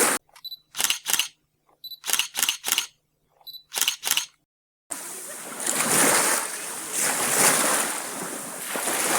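Camera shutter clicks, mostly in pairs, each group led by a short high beep, three times over against dead silence. About five seconds in, steady rushing sea surf takes over.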